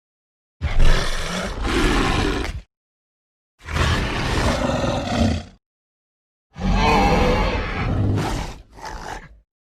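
Disney's Carnotaurus dinosaur roar sound effects: three separate roars of about two seconds each with silent gaps between. The first starts loudest, and the last is followed by a short, quieter extra call.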